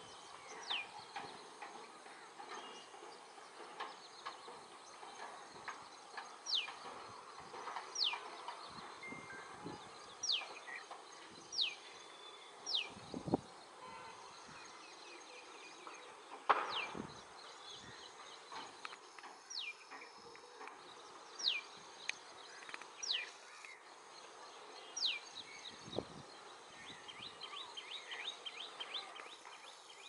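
Common tailorbird calling: sharp, high whistled notes that fall in pitch, repeated every second or two, with a quicker run of short notes near the end. A few dull thumps are heard, over a steady background hiss.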